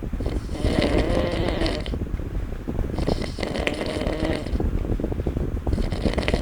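A person snoring, three long snores about two and a half seconds apart.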